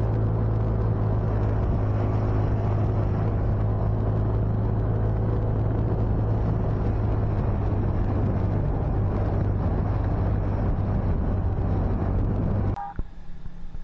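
Motorcycle engine running at a steady pace while riding, with a strong steady hum and road and wind noise. It cuts off suddenly near the end, leaving quieter, uneven outdoor noise.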